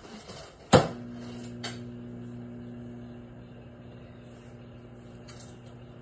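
Countertop microwave oven starting with a loud click, then running with a steady low hum.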